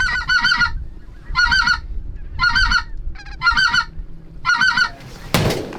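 Geese honking in quick, high sets of calls about once a second, five times. Near the end a single shotgun shot.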